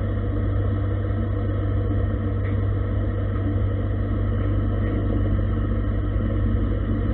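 Gildemeister CTX 400 S2 CNC lathe running with its spindle turning: a steady machine hum with a strong constant low tone.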